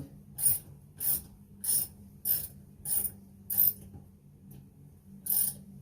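Ratchet socket wrench clicking in short bursts, roughly one and a half strokes a second, as it tightens a toilet seat's mounting bolt. There is a pause of about a second and a half before a last burst near the end.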